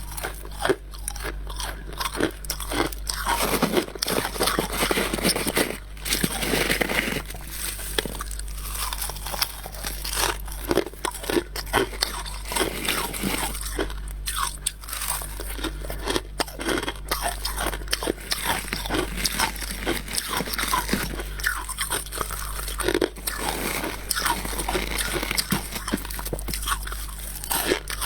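Freezer frost being bitten and chewed, with a continuous run of crunches.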